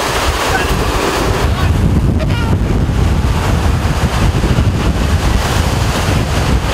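Strong wind near a tornado buffeting the microphone through the vehicle's open side window: a loud, steady rush with heavy low rumble.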